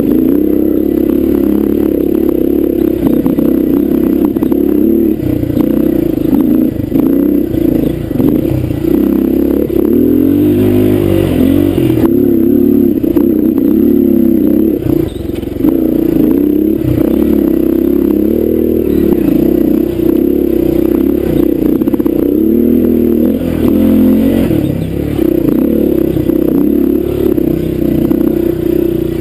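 Honda dirt bike engine running hard under constantly changing throttle, its pitch rising and falling, with frequent knocks and rattles from the bike over rough ground.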